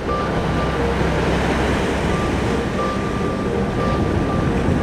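Sea surf washing and breaking against volcanic shore rocks, with wind rumbling on the microphone.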